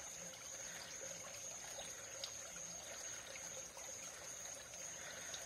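Faint, steady trickle of creek water, with a thin, high-pitched steady whine running through it.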